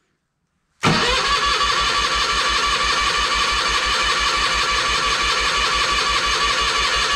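Toro Wheel Horse 520H garden tractor's electric starter cranking the engine over at a steady, even beat, starting about a second in, without it catching: the tractor is out of gas.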